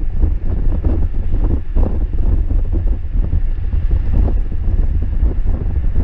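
Wind buffeting the microphone on a motorcycle at freeway speed: a loud, steady, rough rumble, with the bike's running and road noise underneath.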